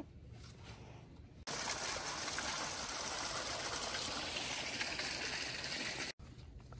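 Running water: a steady, even rushing sound, as from a small stream or cascade. It starts abruptly about a second and a half in and cuts off sharply near the end.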